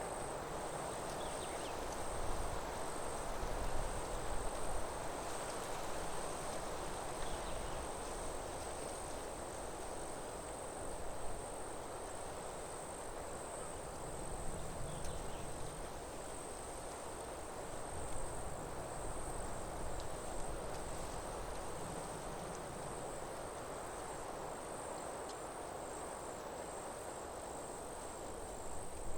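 Insects trilling in one steady, unbroken high-pitched note over a soft, even rushing background.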